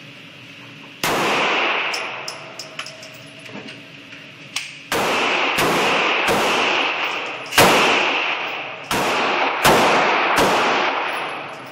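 Pistol fired eight times in an indoor shooting range: one shot, a pause of about four seconds, then seven shots roughly a second apart. Each bang is followed by a long echo off the range walls.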